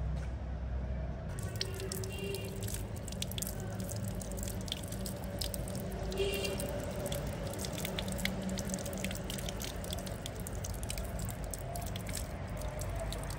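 Water running from an outdoor tap over hands being washed beneath it, with splashing and irregular dripping, starting about a second in.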